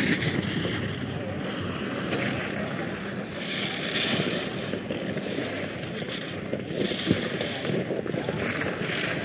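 Racing skis carving hard-packed snow through giant slalom turns: a continuous scraping hiss that swells at each turn, about every two seconds. There is a short knock about seven seconds in.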